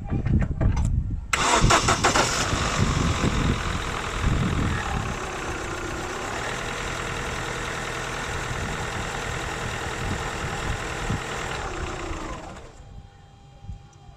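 A 2000 Holden Astra's engine cranking on the starter with a freshly charged battery, catching about a second in and revving up, then running steadily. The sound drops away sharply near the end.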